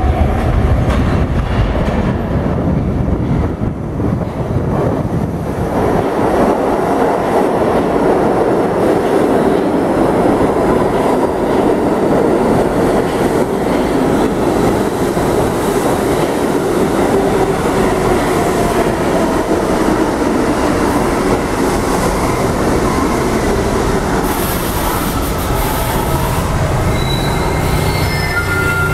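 An R68A subway train enters the underground station: a loud, steady rumble of wheels on rail that grows about five seconds in as the train reaches the platform. A high hiss comes near the end as it slows.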